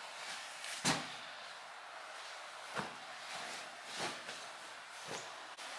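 A few light knocks and bumps, four in all, the loudest about a second in, over a steady low hiss.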